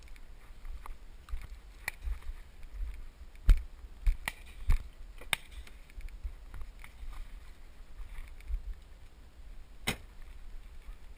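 Irregular knocks and clunks from gear being handled in and around a pickup truck, with the sharpest knock about three and a half seconds in and another near the end. A low wind rumble sits on the helmet-mounted camera's microphone underneath.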